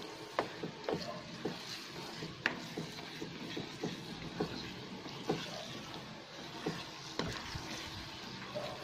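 Wooden spatula stirring and scraping thick glutinous rice in sweetened coconut milk around a nonstick pan, with irregular knocks and scrapes against the pan over a steady sizzle. The mixture is being stirred constantly as it thickens so it does not burn on the bottom.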